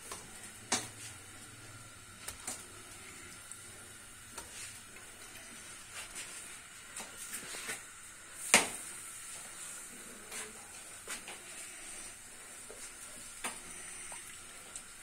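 Kitchen handling sounds: scattered light clicks and knocks of stainless steel bowls and utensils over a faint steady hiss, with one sharper knock a little past halfway.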